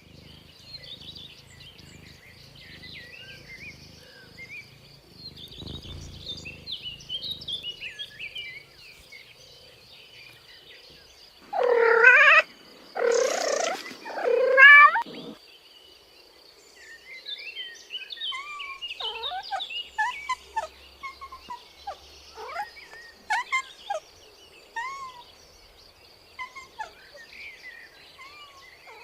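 A cat meows three times, loud and drawn out, about halfway through. Birds chirp throughout, with a faint steady high-pitched whine.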